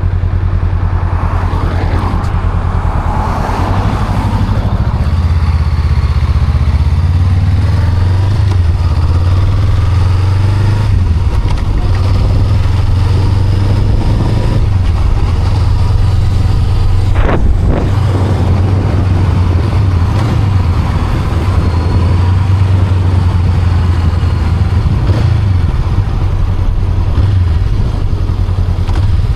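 Honda Rebel 500's parallel-twin engine running under way, its pitch shifting up and down with throttle and gear changes. There is one sharp knock about seventeen seconds in.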